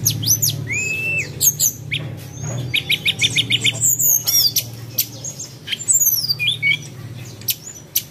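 Birds chirping and squawking in quick whistled glides, with a fast run of about seven short notes about three seconds in, over a low steady hum.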